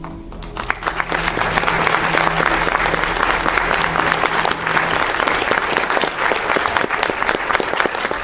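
Congregation applauding: dense clapping breaks out about half a second in and carries on, while a low held note left over from the music dies away under it.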